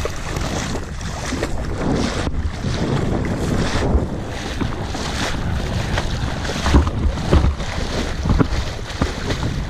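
Wind buffeting an action camera's microphone, with seawater sloshing and splashing around the camera as it is carried at the surface of shallow water. Uneven gusts, with a few louder thuds about seven seconds in.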